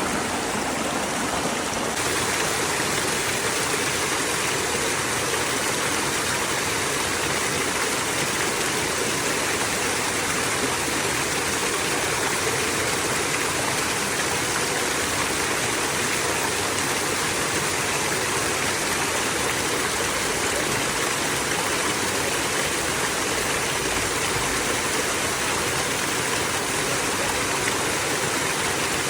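Running water flowing steadily, an even, continuous rush of water with no breaks.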